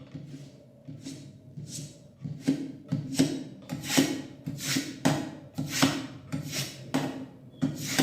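Knife blade being drawn repeatedly through the slot of a manual knife sharpener, a rasping stroke of steel on the sharpening stones about twice a second. The strokes are light at first and grow firmer and louder after a couple of seconds.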